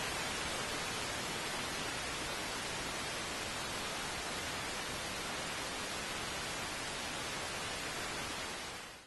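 Television static: a steady hiss of white noise that fades out near the end.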